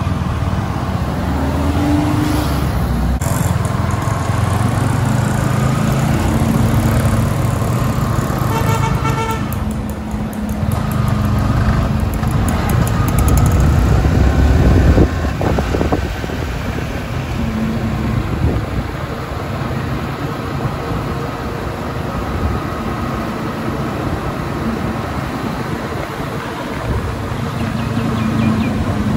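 Ferrari 812 Superfast's 6.5-litre V12 running at low revs as the car drives slowly in traffic, with road and traffic noise around it. A vehicle horn honks briefly about nine seconds in.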